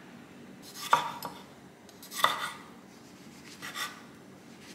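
Kitchen knife slicing cherry tomatoes and a mushroom on a wooden cutting board: three separate cuts about a second and a half apart, each ending in a knock of the blade on the board.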